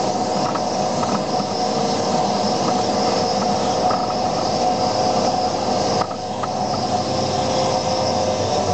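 Skid steer loader running a hydraulic asphalt planer, the cutting drum milling asphalt with a steady grinding rumble and a steady hydraulic whine. The sound drops a little and shifts about six seconds in.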